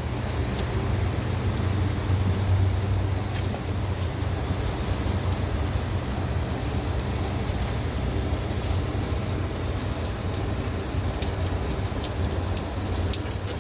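Chickens sizzling on a smoker's hot grate as barbecue sauce is brushed on, over a low steady hum.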